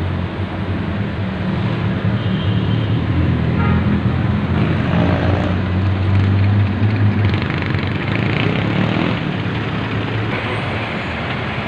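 Busy street traffic, with a vehicle engine running close by under steady road noise; the engine is loudest about six to seven seconds in.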